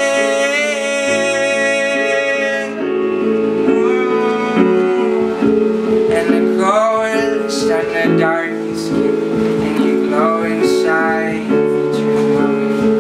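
Live band music: a high male voice sings long held notes for the first few seconds, then shorter phrases, over an electric guitar playing steady notes underneath.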